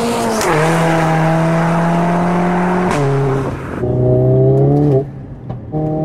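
Mercedes-AMG A45 S's Stage 2-tuned turbocharged four-cylinder engine pulling hard under acceleration, its note rising slowly. The note drops at upshifts about three seconds in and again about five seconds in, with a sharp crack at the first shift.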